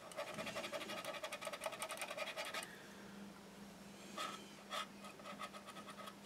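Cotton bud rubbing back and forth over a plastic scale-model tank hull to wipe away excess wash: quick, even scrubbing strokes for the first two and a half seconds, then a couple of single strokes near the two-thirds mark.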